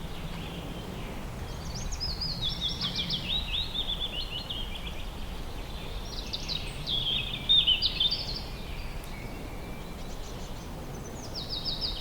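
A songbird singing: three phrases of rapid, high notes that step downward, each lasting two to three seconds, over a steady low background rumble.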